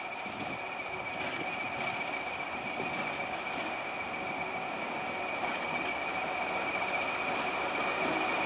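Class 20 diesel-electric locomotive approaching slowly, its English Electric diesel engine running with a steady high whistle over the engine noise, growing louder as it draws near.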